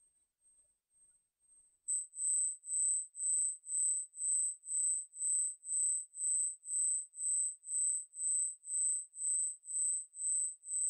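A synthesized tone generated in Cool Edit and played back on loop: a single high-pitched tone that pulses evenly about twice a second, coming in with a click about two seconds in. It is a layer of a home-made spaceship engine start-up sound effect.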